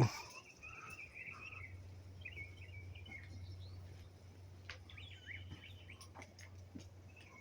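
Birds chirping faintly in short bursts of several calls each, over a steady low hum, with a few faint clicks.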